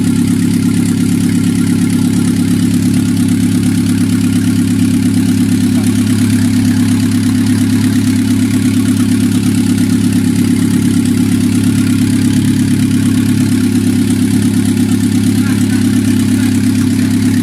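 Chevrolet Niva petrol engine, built up to two litres, idling steadily with an even, unchanging hum.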